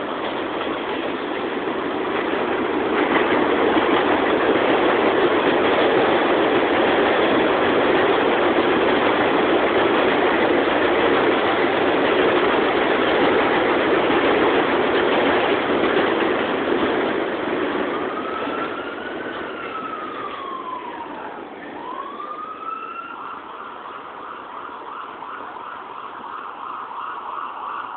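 An NYC 7 subway train running loud along the track, fading from about 17 seconds in. An emergency vehicle siren then wails, rising and falling, and turns to a fast repeating wail near the end.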